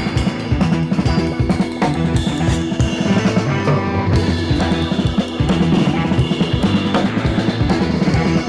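Background music: a rock track with drum kit and steady beat.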